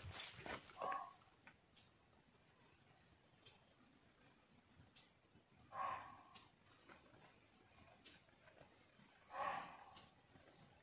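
Indian muntjac (barking deer) giving short barks, three in all about four seconds apart, with a cricket's steady high trill between them.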